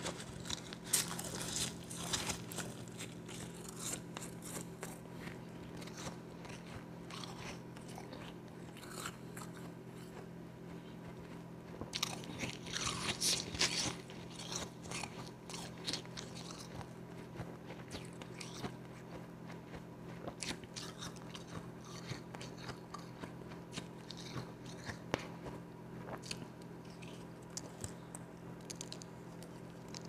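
Close-up crunching and chewing of spoonfuls of powdery ice, an irregular crackle of bites, densest about twelve to fourteen seconds in.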